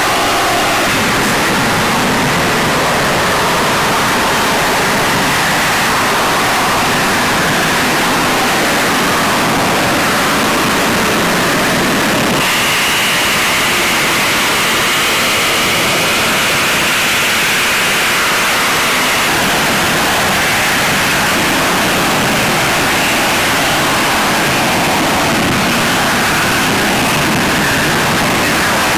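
Loud, steady rushing noise of a military fighter jet's engine flying over. About twelve seconds in the sound shifts and a high whine runs for several seconds.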